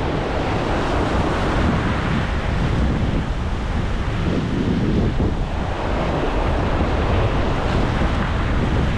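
Ocean surf washing and breaking against a rocky ledge, with wind buffeting the microphone.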